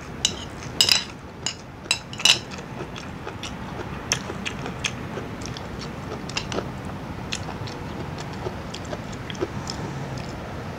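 Close-miked chewing and mouth smacking: a run of sharp wet clicks in the first two seconds or so, then softer, scattered clicks.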